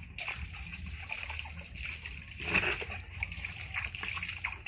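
Water splashing and sloshing in a plastic basin as a baby monkey moves about in it, with one louder splash about halfway through.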